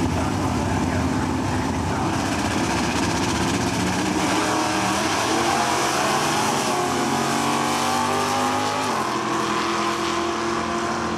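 Two Stock Eliminator drag-racing cars running at the starting line, then launching about four seconds in and accelerating away down the strip, their engine pitch climbing and then dropping at a gear change about nine seconds in.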